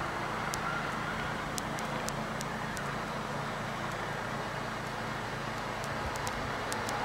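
Steady outdoor background noise on an old camcorder recording: an even hiss with a low hum underneath and a few faint ticks, no distinct event.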